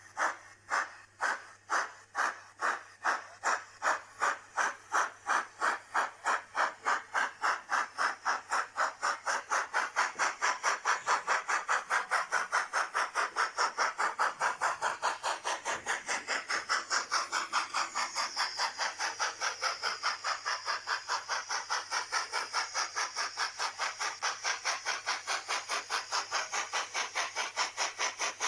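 Sound decoder in an N-scale Fleischmann BR 80 model steam locomotive, playing a BR 70 steam sound project through a small ESU speaker: steam chuffs that start slow and quicken to about four a second over the first ten seconds as the locomotive accelerates, then run on steady.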